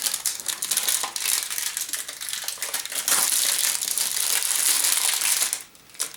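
Dense crinkling and crackling of a giant surprise egg's wrapping as hands grip and handle it, stopping shortly before the end.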